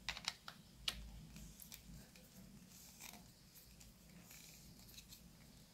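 Faint plastic clicks from twisting a TPMS valve-cap sensor's battery cover with its star-shaped plastic tool: a few sharp clicks in the first second, then scattered light ticks.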